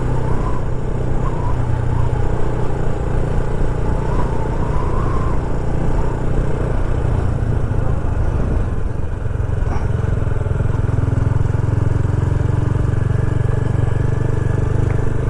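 Motorcycle engine running steadily while riding, easing briefly about halfway through before picking up again.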